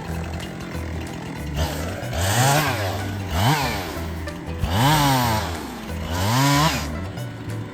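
Chainsaw engine revved up and back down about four times in quick succession, over background music with a steady bass line.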